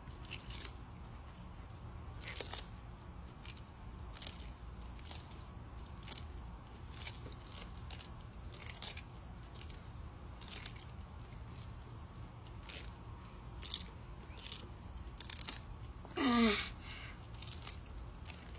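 Sulcata tortoises biting into prickly pear cactus pads: crisp crunches at an uneven pace, one every half second to a second or so. Near the end a brief louder sound slides down in pitch over about half a second.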